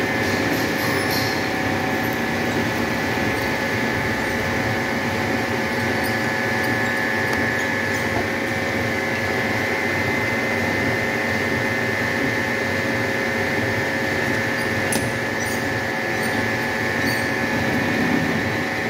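Milling machine running steadily, its end mill cutting the hexagon flats of a bolt head held in a three-jaw chuck on an indexing head. The machine gives a steady hum with several high and low tones, and a few faint clicks come about a second in and again near the end.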